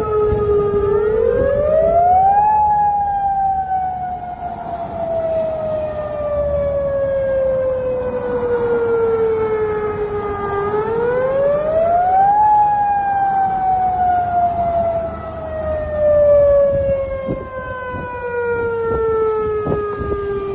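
Outdoor civil-defense warning siren wailing in slow cycles. Each cycle is a quick rise in pitch over about two seconds and then a long, slow fall over about eight seconds. This happens twice, and the pitch starts to rise again at the end. The siren is sounding as a warning after a magnitude 8.2 earthquake. A low rumble from the moving vehicle runs underneath.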